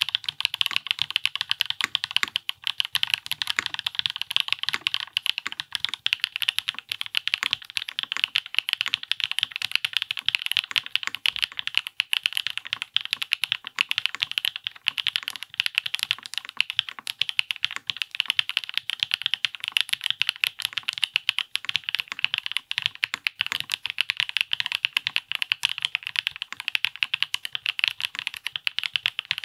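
Steady fast typing on a Zoom75 TIGA mechanical keyboard with an aluminium plate, stock WS POM+ switches and Cherry-profile PBT keycaps: a dense stream of crisp keystroke clicks. The foam kit inside changes from cork to standard EVA foam about six seconds in, and to Poron foam about twenty-two seconds in.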